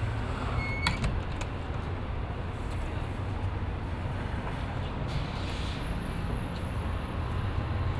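Steady low rumble of city street traffic, with a few brief clicks about a second in.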